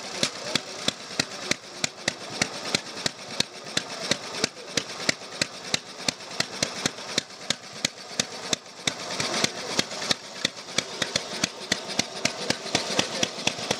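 Veteran Triumph 550 cc single-cylinder engine running at low speed, a slow, even beat of sharp exhaust pops at about three a second. The beat grows louder in the second half as the machine is ridden off.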